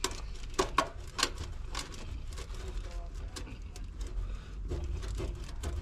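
A run of sharp clicks and knocks, with three loud ones close together in the first second and a half and more scattered after: hand tools working at a plastic trim clip on the car's underside, trying to prise it free.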